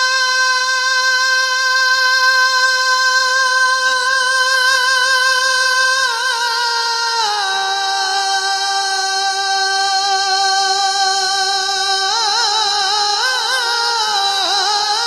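A male naat singer holds long, high notes on a vowel, unaccompanied and amplified through a microphone. One pitch is held for about six seconds, then it steps down to a lower held note, and wavering ornaments come in near the end.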